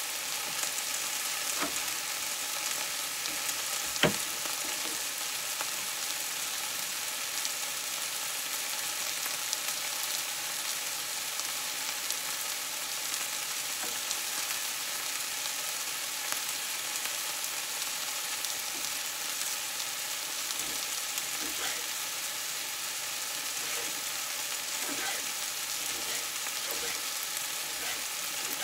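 Ratatouille vegetables (eggplant, onion, tomato) sizzling steadily in a frying pan. A few light knocks of a knife on a wooden cutting board come through the sizzle, the sharpest about four seconds in.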